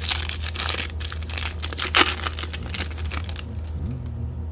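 Crinkly plastic wrapper of a Topps baseball card pack being torn open and crumpled, with a sharp rip about two seconds in; the crinkling dies away after about three and a half seconds. A steady low hum runs underneath.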